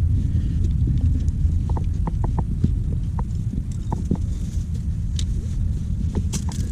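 A climber moving up a rock chimney: a steady low rumble, with scattered sharp clicks and taps, like climbing hardware knocking against rock.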